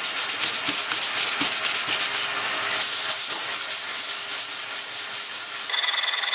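Sandpaper sanding wood, a fast run of even scratchy strokes that turns into a steadier hiss about halfway through. Near the end the sanding cuts off abruptly and a steady high-pitched whine takes its place.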